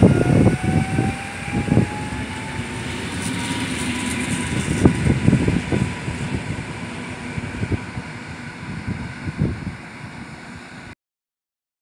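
EN57AL electric multiple unit pulling away from the platform, its traction drive whine rising steadily in pitch as it accelerates, with irregular low thumps throughout. The sound cuts off abruptly about a second before the end.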